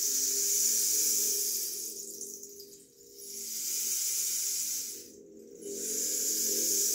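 Rain stick and ocean drum, their beads rolling in long rushing swishes that swell and fade like waves about every two to three seconds. A low ringing hum from the gongs lingers beneath.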